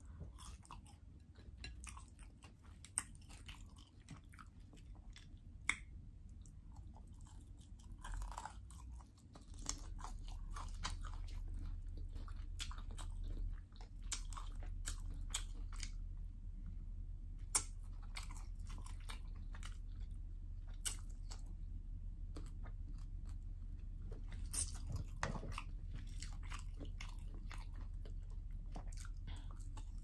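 A person chewing and biting fried potatoes and roasted chicken, with many short crunches and mouth sounds. A steady low hum comes in underneath about ten seconds in.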